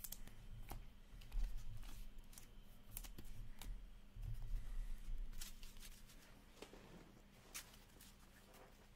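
Upper Deck Ice hockey trading cards being handled and set down on a table: light scattered card clicks and slides with a few dull knocks, dying down in the second half.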